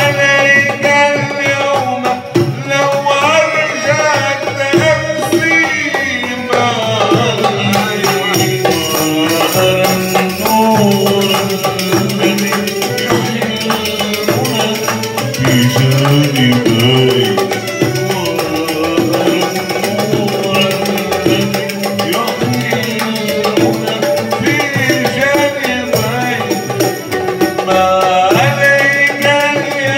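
Live oud music: two ouds plucked together while a man sings a melody that bends and ornaments its notes.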